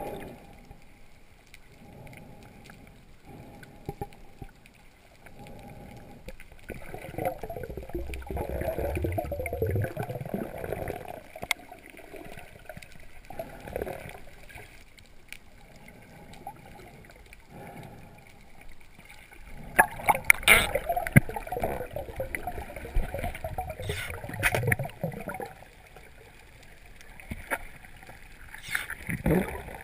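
Muffled water movement and gurgling heard through an underwater camera, swelling and fading unevenly, with a cluster of sharp knocks and clicks about two-thirds of the way through.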